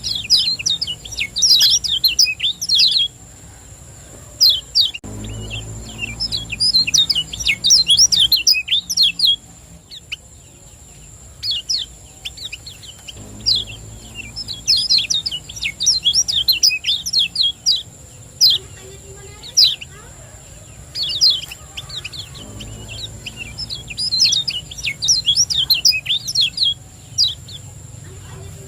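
Kecial kuning white-eye singing its fast 'ciak jos' song: rapid runs of high, sharp chirps in phrases a few seconds long with short pauses between. A steady thin high whine sits underneath.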